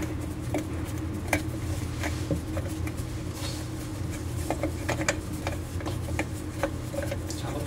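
Light, irregular clicks and rubbing as a nut is turned by hand onto the brass threaded shank of a basin mixing faucet, tightening it, over a steady low hum.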